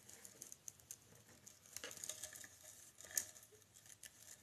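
Near silence: quiet room tone with a few faint small clicks and light rustles, one click a little louder about three seconds in.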